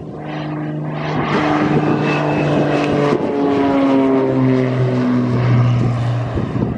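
Cessna 402B twin piston-engine plane at takeoff power, climbing out and passing close by. Its engine and propeller drone grows louder, then drops in pitch about three seconds in as it goes past.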